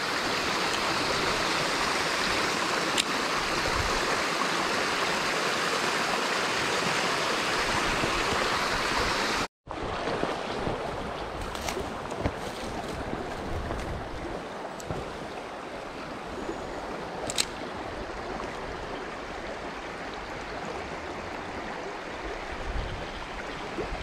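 Steady rush of a small waterfall splashing into its pool. After a sudden cut about halfway through, a quieter shallow creek flowing over stones, with a few light clicks.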